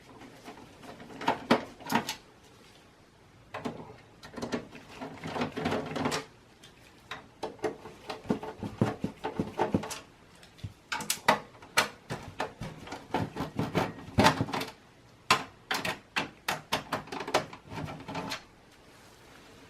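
Phillips screwdriver backing out the power-supply screws on the rear of a Dell OptiPlex 780 mini-tower case: rapid small clicks and scrapes in about four spells with short pauses between.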